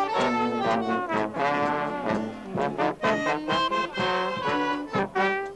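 Brass music, a lively tune of short notes that change pitch every fraction of a second.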